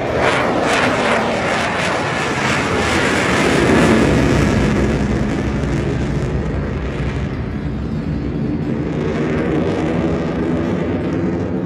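F-16 fighter jet flying past overhead: loud, steady jet engine noise that drops in pitch a few seconds in as it passes, then eases slightly.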